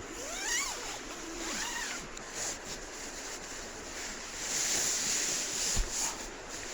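Steady rush of flowing river water, with a few short rising whistle-like glides in the first two seconds and a brief low thump near the end.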